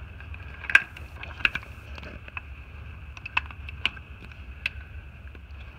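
A handful of scattered, irregular metallic clicks and taps from a socket and ratchet being fitted onto the serpentine belt tensioner's mounting bolts, the sharpest about a second in, over a steady low hum.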